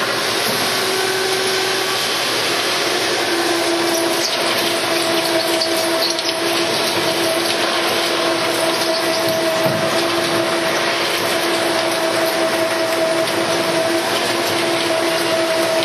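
CNC plate drilling machine drilling a plate with the drill feeding at 3.5 mm a second under a stream of coolant: a steady hiss of machining and spraying coolant, with a steady hum and a higher whine setting in about three seconds in.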